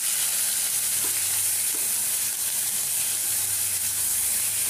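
Freshly added grated onion sizzling steadily in hot oil in a kadai, with a wooden spatula stirring it.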